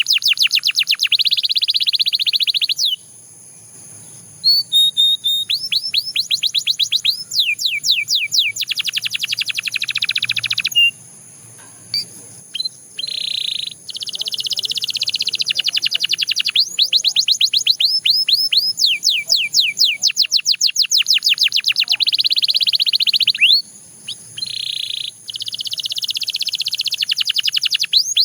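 Belgian canary singing: long runs of fast trills, each made of rapidly repeated high falling notes, broken by three short pauses.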